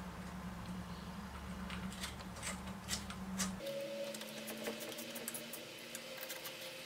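Light scattered metallic clicks and ticks as small steel transfer screws are turned by hand into the threaded bolt holes of a cast iron cylinder head, over a steady low hum that shifts in pitch about halfway through.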